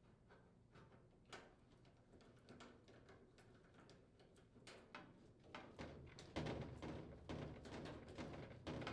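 Faint scattered clicks and small knocks of hand work on the laundry center's sheet-metal panels and screws, getting busier and louder over a low rumble from about six seconds in.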